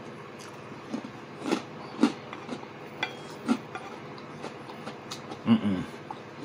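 A wooden spoon clinking and scraping against a speckled enamel pan while food is scooped up: about six separate taps, the loudest near the end.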